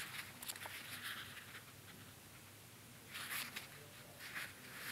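Quiet pause with faint room tone and a few soft rustles of a paperback book handled in the hands, about three seconds in and again just after four seconds.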